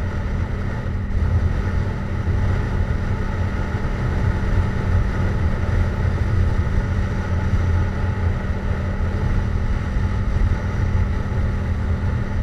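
Yamaha MT-07 parallel-twin engine with a Jeskap GP aftermarket exhaust, running at a steady speed on the road with no revving.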